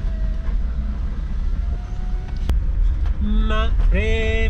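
Four-wheel-drive vehicle's engine and tyres giving a steady low rumble, with a sharp click about halfway through. A voice comes in over it near the end with long held notes, like singing.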